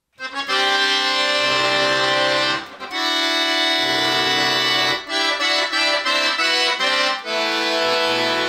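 Chromatic button accordion starting to play, with loud sustained full chords that break off briefly every two to three seconds between phrases.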